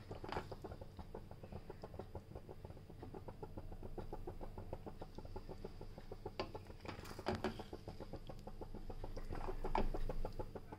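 Thick white sauce and pasta simmering in a pan, with a steady run of small bubbling pops and a few louder spatula strokes through the pasta near the middle and the end.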